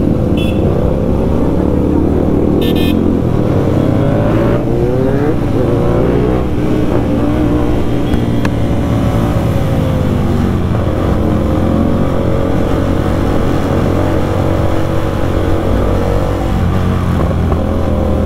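Sport motorcycle engine running in city traffic, revving up and down through the gears, with other motorcycles and traffic around. Two short horn beeps sound about half a second and about three seconds in.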